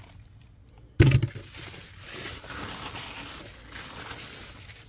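A sudden thump about a second in, then a crackly rustling of cucumber leaves and stems brushing against the phone as it pushes through the plants.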